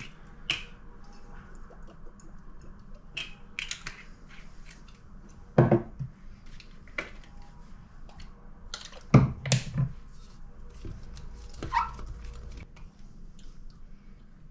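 Small kitchen handling sounds: scattered clicks and knocks as small bottles are uncapped, shaken over a plastic yogurt cup and set down on the counter. A few louder knocks come about six seconds in and again around nine seconds in.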